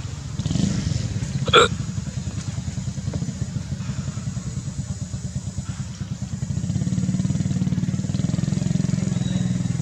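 A motorcycle engine runs steadily with a fast, even pulse, getting louder about six and a half seconds in. A single sharp click comes about a second and a half in.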